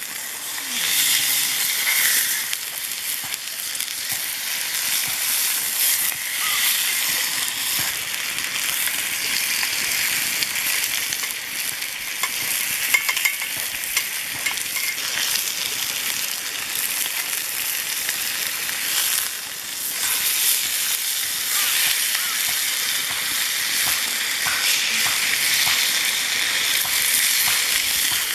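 A thick beef steak sizzling steadily in a forged iron frying pan as it sears in fat and melting butter, with occasional scrapes and taps of metal tongs against the pan.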